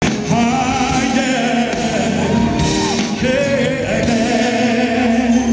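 Live R&B band playing with a male lead singer, his held notes wavering with vibrato over sustained chords and bass.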